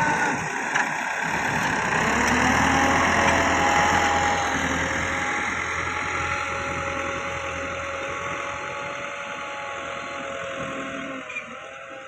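Massey Ferguson 385 tractor's four-cylinder diesel engine running steadily while pulling a disc plough through soil, loudest a few seconds in and fading as the tractor moves away.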